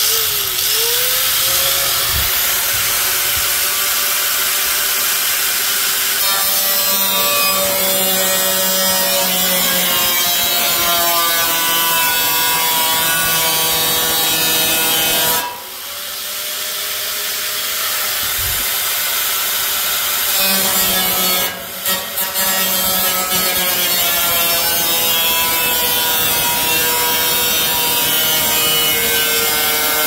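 Electric angle grinder running, its motor whine winding up at the start. Its pitch sags and recovers as the disc works into a thick old computer case side panel. Halfway through it cuts off and winds back up, then dips briefly a few times.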